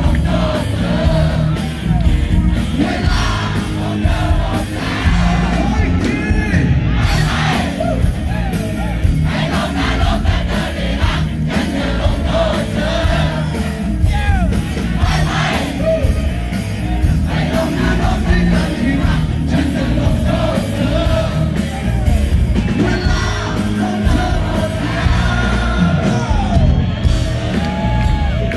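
Live rock band playing through a PA system, a man singing lead vocals into a microphone over a steady drum beat and bass.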